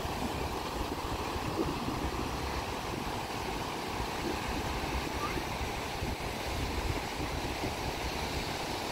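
Rough sea surf breaking and washing up a sandy beach: a steady rush of noise, with a low wind rumble on the microphone underneath.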